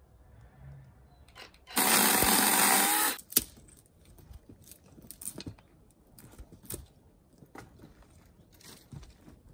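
A power tool runs in one short burst of about a second and a half, starting and stopping abruptly, followed by a sharp knock and then scattered light clicks and knocks of handling.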